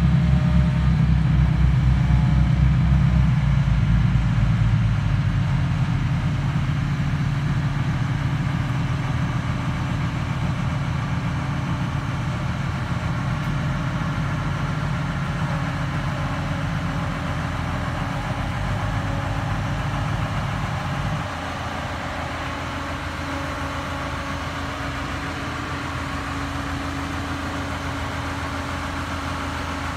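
Straddle carrier's engine running steadily as the machine drives slowly with a boat slung beneath it. About 21 seconds in, the engine note drops suddenly to a lower, quieter level and runs on steadily.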